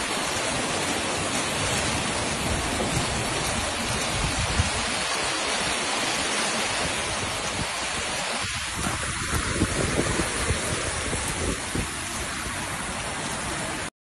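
Heavy rain pouring down, a steady dense hiss that cuts off suddenly at the end.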